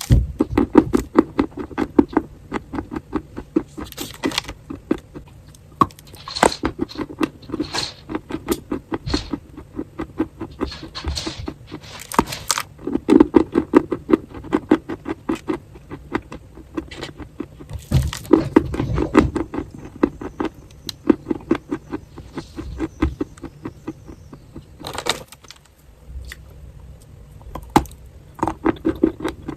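Close-miked crunching of edible chalk or clay: dense runs of fast, sharp crackles in clusters a second or two long, with short pauses between.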